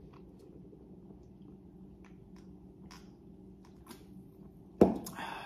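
Faint chewing and small mouth clicks from someone eating, then a swig from a drink can ending in a sudden loud breath out near the end.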